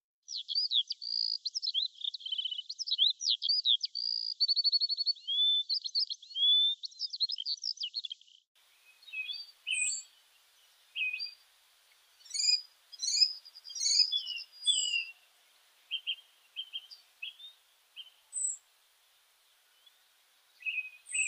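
Birdsong: a rapid, varied run of high whistled notes and trills for about the first eight seconds, then an abrupt change to scattered separate chirps and short calls over a faint hiss.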